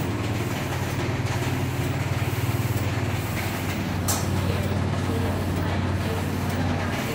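DTF film printer with its powder shaker-dryer unit running, a steady low machine hum. A single sharp click about four seconds in.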